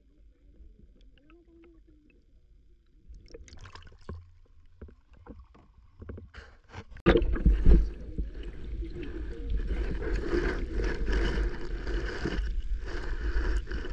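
Water sloshing and gurgling around a kayak: faint scattered clicks and gurgles at first, then about halfway through a sudden jump to a loud, rumbling wash of water noise.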